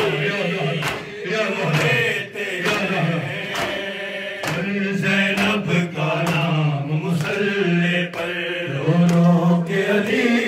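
A man chanting an Urdu noha (Shia lament) into a microphone, with other mourners singing along. Sharp slaps of chest-beating (matam) fall in time with it, about one a second.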